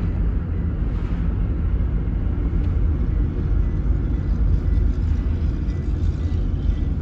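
Steady low road and engine rumble heard inside a moving car's cabin, with a faint steady high whine.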